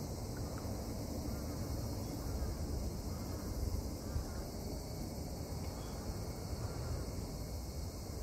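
Wind buffeting the phone's microphone, an uneven low rumble, with faint chirps now and then.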